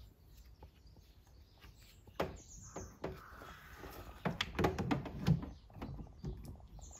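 Scattered clicks and clunks of jump-lead cables and clamps being handled at a car battery in the boot, busiest in the second half.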